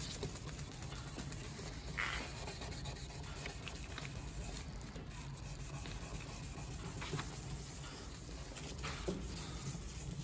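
1200-grit sandpaper on a sanding block being rubbed by hand over a wet plastic tail-light lens, giving a steady soft rubbing with a few brief sharper scuffs.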